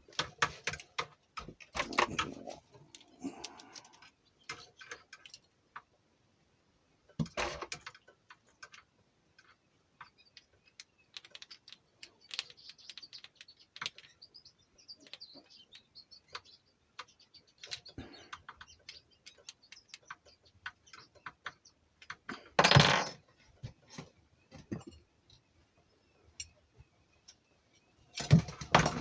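Small hard objects, metal parts and tools, clicking and clinking as they are handled, in scattered irregular taps with a few louder knocks. No rotary tool is running.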